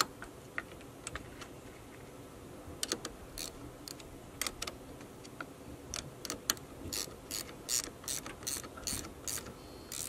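Hand socket ratchet clicking in short strokes while tightening a battery terminal: scattered clicks at first, then a steady run of about two to three clicks a second in the second half.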